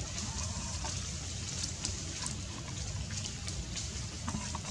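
Steady outdoor background noise: a low rumble with a faint hiss, scattered faint ticks and a few brief faint chirps.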